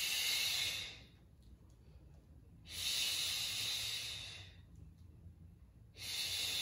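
A woman breathing audibly in rhythm with bicep curls against a resistance band: three long breaths, about three seconds apart.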